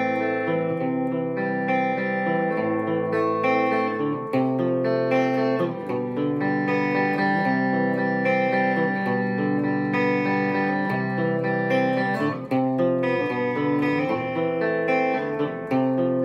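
Fender Stratocaster electric guitar played through an Orange amp on a clean, undistorted setting: a soft passage of picked chords and melody notes ringing on without overdrive or distortion.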